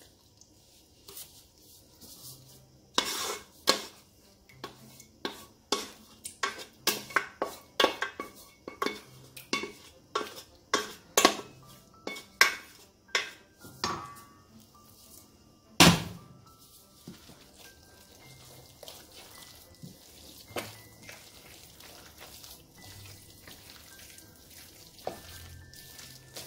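Wooden spoon scraping and knocking against a metal pot and a stainless-steel bowl as thick béchamel is scraped out: a run of sharp knocks, about one or two a second, the loudest a little past the middle. After that, quieter stirring of the thick mixture in the bowl.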